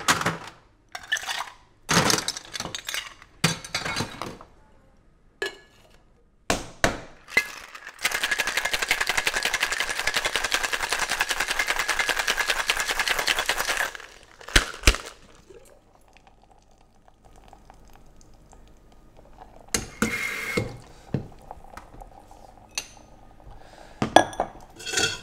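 Ice and metal clinking in a two-piece metal cocktail shaker, then about six seconds of hard, fast, even shaking of ice in the tins. Sharp metallic knocks and clinks follow as the tins are handled and separated.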